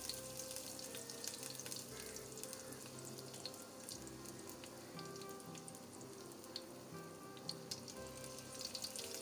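Faint sizzling of oil in a steel pan where chopped garlic, ginger, dry red chillies and mustard seeds fry on low heat, with a few small scattered crackles.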